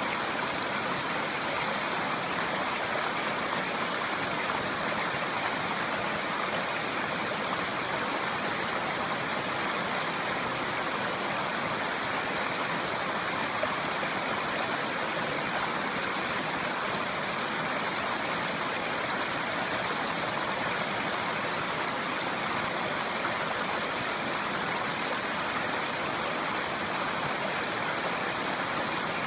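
Clear river flowing, a steady rush of running water.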